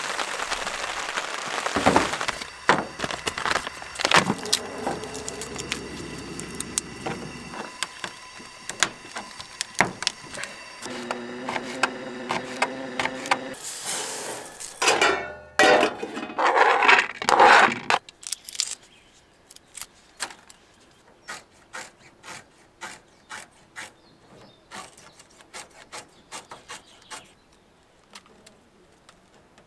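Camp-cooking handling sounds: a steady run of clicks, knocks and scrapes from a plastic cup, container and aluminium pots on a gas camp stove on a metal tailgate, with liquid poured into a pot about halfway through. A louder clatter follows the pour, then lighter, sparser taps.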